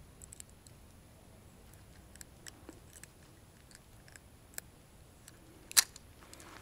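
Spinning reel being handled: faint scattered clicks and ticks, with one sharp click near the end.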